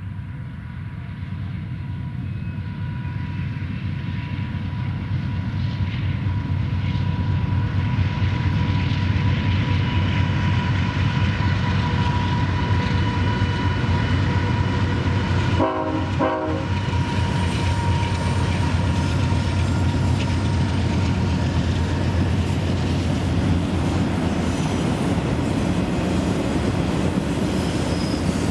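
BNSF freight train of autorack cars rolling past with a steady rumble of wheels on the rails, growing louder over the first several seconds and then holding. A thin steady whine rides over it through about the first half.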